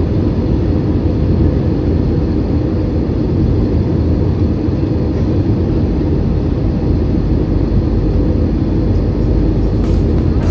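Airbus A320 cabin noise in cruise: a steady, loud, deep rumble of engines and airflow with no changes.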